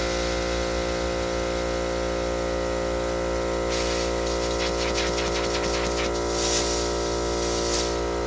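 Embraco hermetic refrigeration compressor running on mains power with a steady hum. From about four seconds in, a hiss with rapid crackles joins it as air spits from the open discharge tube, carrying some of the oil and refrigerant still left in the unit.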